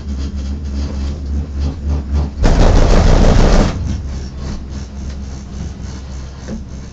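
Genting Skyway gondola cabin riding the haul rope with a steady low hum. About two and a half seconds in comes a loud rumbling clatter lasting just over a second as the cabin passes over the support tower's sheave wheels, then the hum settles back.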